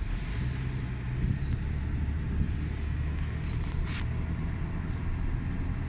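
Car engine and road noise heard from inside a moving car: a steady low hum over a rumble.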